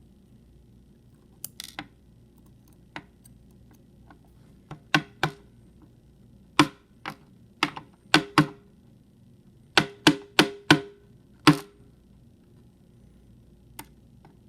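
Sharp, irregular metal clicks and taps as small parts of a dismantled euro lock cylinder are handled and knocked against a hard work surface. About a dozen strikes, some ringing briefly, with a quick run of loud taps about ten seconds in.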